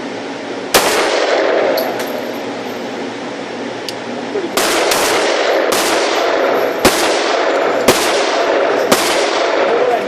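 Pistol shots, each followed by a long echoing tail: a single shot, then after a pause of about four seconds five more at roughly one a second.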